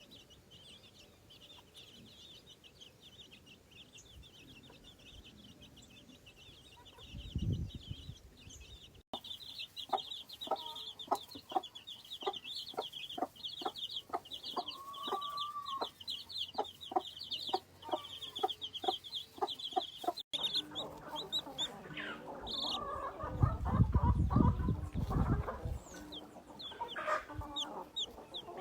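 A hen clucking in a steady rhythm, about two clucks a second, over the constant high peeping of her chicks. There are low thumps about seven seconds in and again in the last few seconds.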